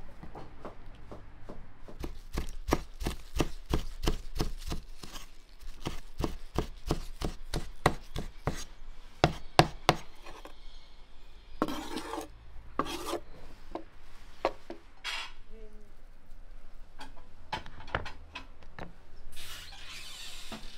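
Broad-bladed kitchen knife chopping chives on a wooden cutting board in quick, even strokes, about four a second. The strokes give way to a few scraping sweeps of the blade across the board and scattered single knocks.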